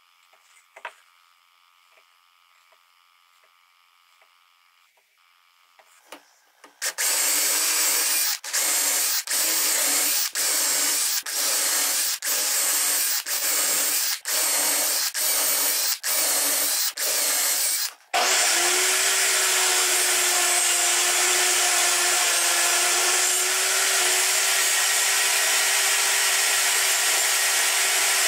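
A power drill boring dowel holes through a doweling jig into a wooden board, run in about a dozen short bursts with brief pauses between them after a few quiet seconds. About eighteen seconds in, a table saw starts and runs steadily with a constant hum.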